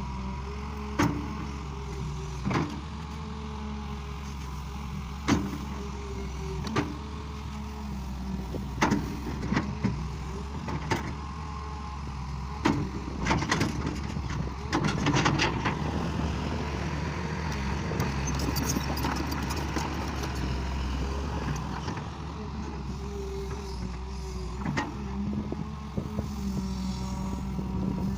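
Excavator's diesel engine running steadily under load, with a whine that rises and falls and a series of sharp knocks and clanks scattered throughout.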